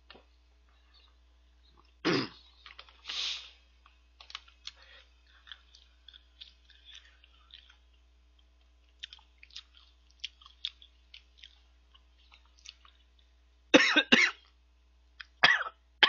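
A man chewing a crunchy chocolate cereal snack, with many small crunches, and coughing: one cough about two seconds in and a short fit of coughs near the end as the food goes down the wrong way.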